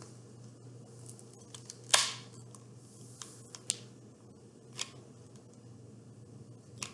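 A handful of sharp plastic clicks and taps from a hot glue gun being loaded and worked over a plastic plate, the loudest about two seconds in, over a steady low hum.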